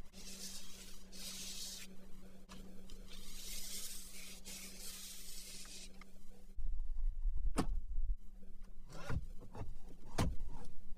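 Quiet car-interior room tone with a steady low hum. Then a deeper rumble and three sharp knocks, about a second and a half apart, as a hand handles the leather steering wheel.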